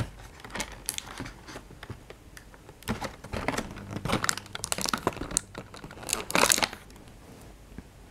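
Cardboard advent calendar being handled as a door is opened and a pencil is drawn out: papery rustling, scraping and small clicks, with a louder rustle about six seconds in.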